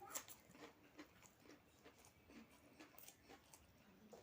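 Faint chewing, with soft wet mouth clicks scattered through.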